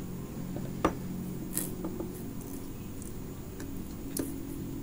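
A few small sharp clicks and taps as fingers and a metal tool work at the plastic AM3+ CPU socket on a motherboard, the sharpest about a second in, over a steady low hum.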